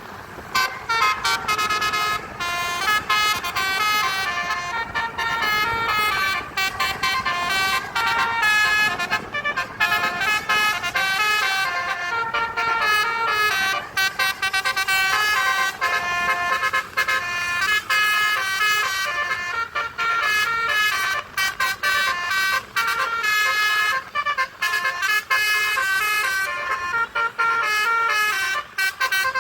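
Indonesian bus telolet horn, a set of electrically switched multi-tone air horns, playing a melody of short stepping notes over and over.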